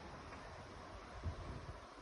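Wind buffeting the microphone: a faint hiss with low rumbling gusts, one stronger thump a little past a second in.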